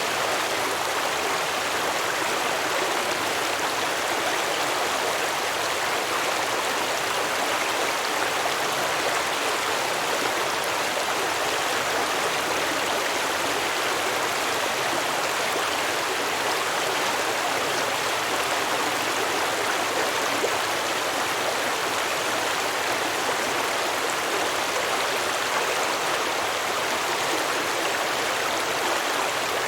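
A shallow stream of clear water flowing and babbling over rocks in a steady, even rush.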